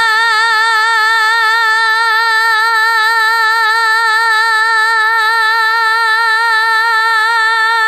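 A woman's singing voice holding one long note with even vibrato, unaccompanied: the show-off held note of a singing contest.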